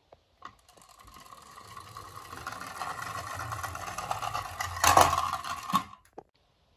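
Small toy ambulance rolling down a wooden chute, its wheels rumbling and whirring on the wood and growing louder as it speeds up. There is a sharp knock about five seconds in, and the rolling stops just before six seconds, followed by a small knock.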